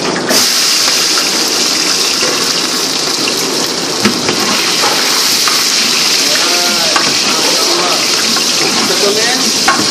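Chopped garlic dropped into hot oil in a large aluminium pot, starting to sizzle suddenly just after the start and carrying on as a steady loud hiss while it is stirred with a ladle.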